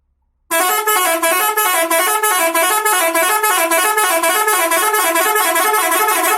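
Telolet bus horn, a multi-note musical horn with 18 buttons, playing a fast tune of short notes that change pitch several times a second. It starts about half a second in.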